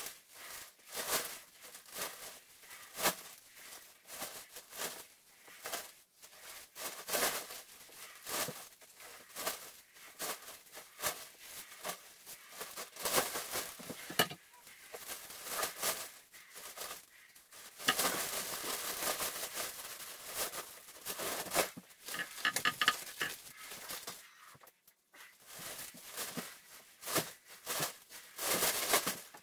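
A black plastic contractor trash bag rustling and crinkling as soiled paper and rags are gathered and stuffed into it, in short irregular bursts, with a longer stretch of steady rustling about two thirds of the way through.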